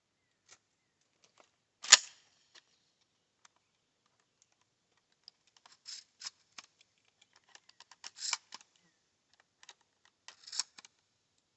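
Buckshot shells being loaded into a Stevens 320 pump-action shotgun's tube magazine: a run of sharp metallic clicks and clacks, with one loud clack about two seconds in and further clusters of clicks roughly every two seconds after the middle.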